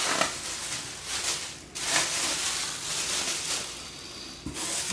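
Rustling and crinkling of snack packaging being handled, an uneven noise that swells and dips, with a sharper knock near the end.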